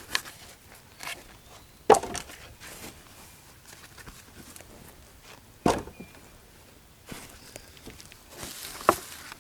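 Footsteps and handling noises, with three sharp knocks about two, six and nine seconds in.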